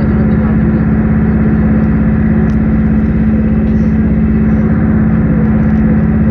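Steady engine drone heard from inside a moving vehicle, with a strong constant low hum and a fast, even pulse underneath, unchanged throughout: running at a steady speed.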